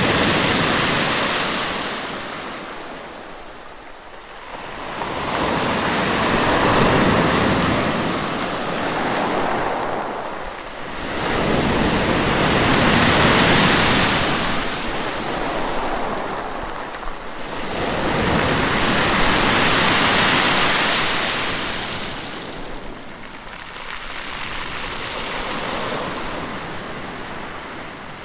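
Sea waves washing onto a shore, the surf swelling and ebbing in slow surges about every six or seven seconds.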